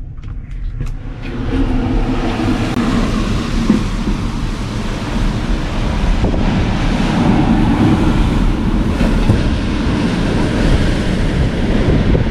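Hurricane-force storm wind with driving rain, a loud, steady rush that swells about a second in and buffets the microphone.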